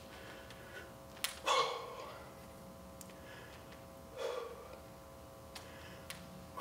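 A man's short, forceful exhalations during a seated overhead dumbbell shoulder press, one with each press, about three seconds apart. Between them come a few faint sharp ticks, and a faint steady hum runs underneath.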